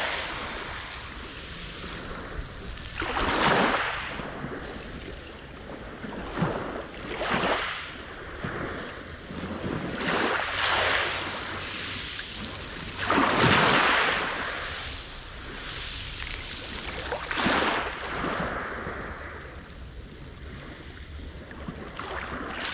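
Black Sea surf: waves breaking on the shore one after another, each swelling up and washing back a few seconds apart, the biggest about three and a half seconds in and about thirteen seconds in.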